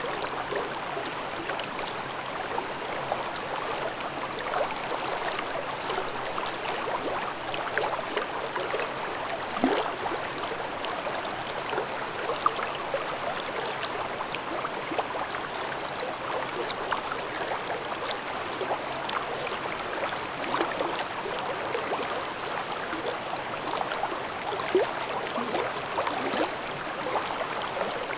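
A shallow stream babbling over rocks: steady rushing water with many small splashes and gurgles.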